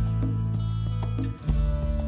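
Background music with steady low notes and plucked notes; it drops out briefly a little after a second in.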